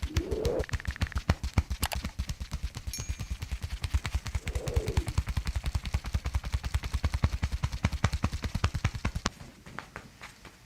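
A fast, even train of percussive thumps, about nine a second, that thins out to scattered taps near the end. A short rising tone sounds at the start and again about four and a half seconds in.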